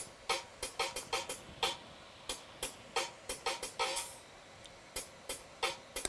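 A rapid, irregular series of sharp clicks and taps from a disassembled OnePlus Two smartphone as its internals are pried and handled with fingers and a spudger.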